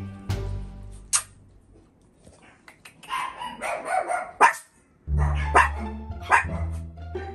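Chihuahua puppies barking and yipping in play. Background music drops out for a few seconds in the middle and comes back near the end.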